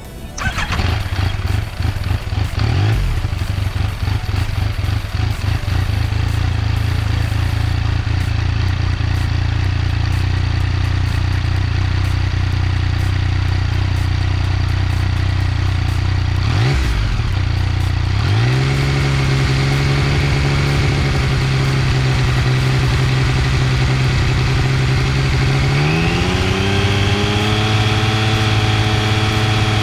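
Yamaha MT-09's three-cylinder engine running on a stationary bike, held at a steady engine speed and then raised in steps, once a little past halfway and again near the end, each new speed held steady: a stationary exhaust-noise test taken rpm by rpm.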